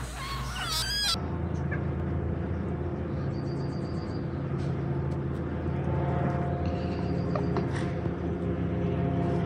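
High, wavering mewing from a kitten in the first second, then a steady low mechanical hum, with faint high chirps over it now and then.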